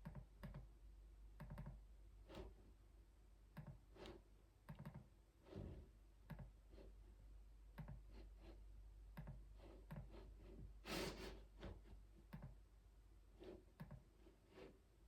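Faint computer keyboard typing: irregular keystroke clicks in short runs with brief pauses, and one louder clack about eleven seconds in.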